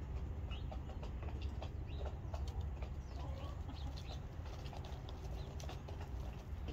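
Faint, scattered short bird calls and ticks, several a second, over a steady low rumble.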